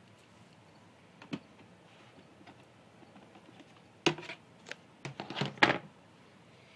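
A single sharp knock about a second in, then a quick run of loud knocks and clicks between about four and six seconds in, from handling during the snakes' bath.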